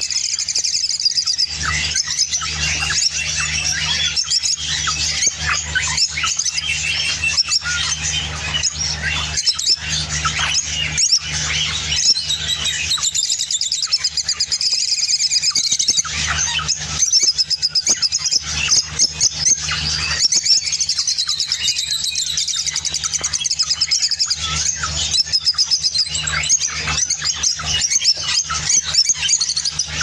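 A flock of rosy-faced lovebirds chattering in a cage: a dense, continuous stream of high-pitched chirps and twitters from many birds at once. A steady low hum runs underneath.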